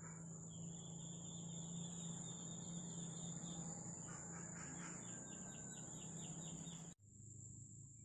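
Faint nature ambience: a steady high-pitched insect trill with birds chirping in quick repeated series over it. About seven seconds in, the bird chirps stop abruptly and the trill carries on alone.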